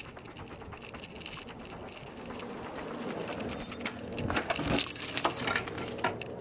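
Keys jangling and a key pushed into and turned in a door lock: a run of small metallic clicks and rattles about four to five and a half seconds in.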